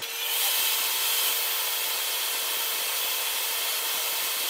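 Fast-forwarded, sped-up audio: a steady, high hissing rush with a faint steady whine. It starts and stops abruptly.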